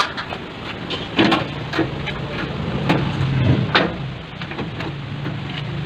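Irregular knocks and clicks, a few louder ones about a second in and near four seconds, over a steady low hum.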